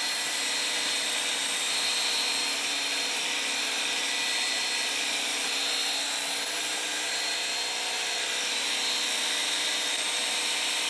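DeWalt 20-volt cordless pressure washer (DCPW550) running with its soap dispenser bottle fitted: the battery pump motor runs steadily under a constant hiss of spray.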